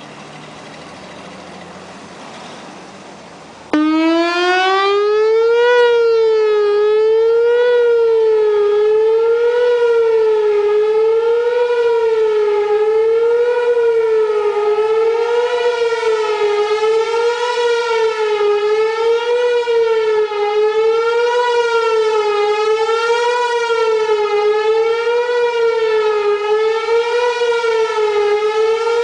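A Whelen 4004 electronic outdoor warning siren cuts in loudly about three and a half seconds in. Its pitch climbs for a couple of seconds, then rises and falls about once a second in a wavering tone. Before it starts there is only a faint low rumble.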